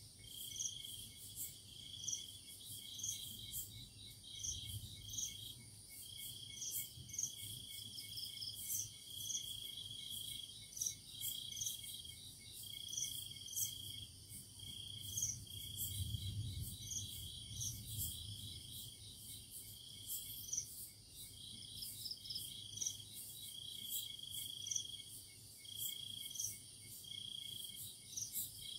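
Night insects calling: crickets trilling in short pulsed trains over and over, with a higher-pitched chirp repeating about once a second.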